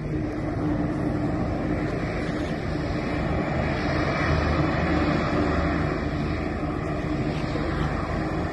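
Aircraft jet engines running on an airport apron, a steady rushing noise with wind on the microphone.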